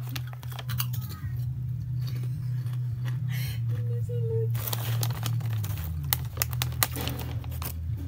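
Foil potato-chip bag crinkling as it is handled, in clusters of sharp crackles, over a steady low hum.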